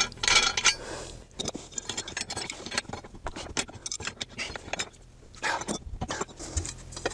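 Steel hand tools clicking, tapping and scraping against a jam nut and a steel channel as the nut is tightened with a wrench. The clicks are irregular, with a busier cluster about five and a half seconds in.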